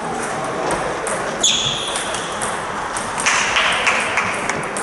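Table tennis balls clicking off bats and tables in rallies at several tables in a sports hall, with a short high-pitched squeak about a second and a half in.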